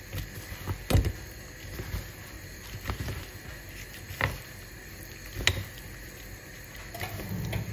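Gloved hand tossing raw squid, mussels and shrimp in almond flour in a plastic colander bowl: soft rustling and squishing, with about four sharp knocks against the plastic.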